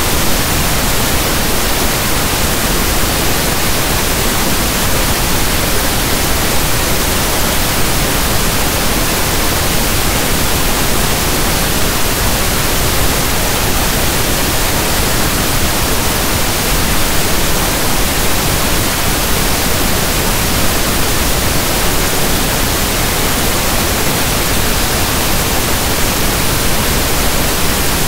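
Steady, unchanging pink noise: an even static hiss like a radio not tuned to a station.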